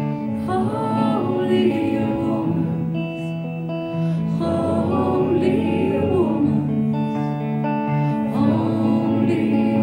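Live performance of a slow ballad: guitar chords ringing under singing without clear words, which comes in three phrases.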